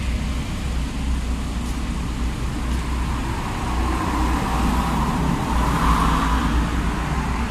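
Road traffic noise: a steady low rumble that swells louder about four to six seconds in.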